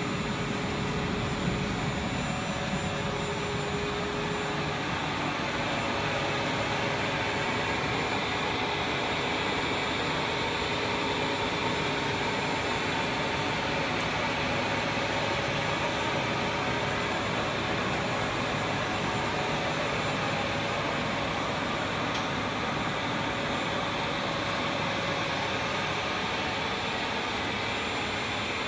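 Steady, even roar of a blown-film extrusion line running in production, with a few faint steady tones through it.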